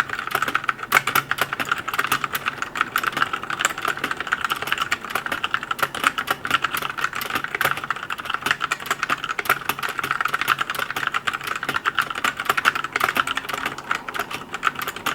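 Fast, continuous typing on a Drevo Calibur V2 budget mechanical keyboard with tactile switches: a dense, steady stream of key clacks.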